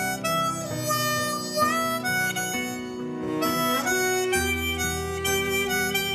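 Diatonic blues harp playing a slow pop melody, with notes sliding into pitch, over a backing track of low sustained chords.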